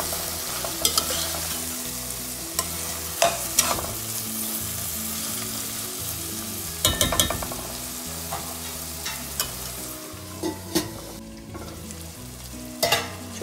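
Raw jackfruit pieces in masala frying in oil in a stainless steel pan, sizzling steadily while a metal spoon stirs them, scraping and clinking against the pan every few seconds. The sizzle thins out near the end.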